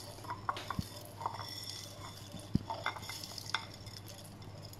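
Dry whole spices (coriander seeds, cardamom pods, cloves) being handled in a glass bowl and tipped into a stone mortar: scattered small clicks and ticks of seeds against glass and stone, a few sharper, over a low steady hum.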